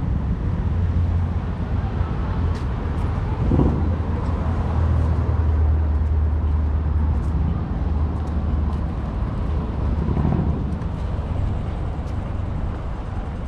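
City street traffic: a steady low rumble of motor vehicles running close by, with the hiss of passing traffic over it.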